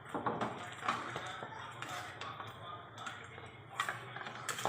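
Metal cooking utensils knocking and clinking against a pan, a few separate sharp knocks with quieter handling in between.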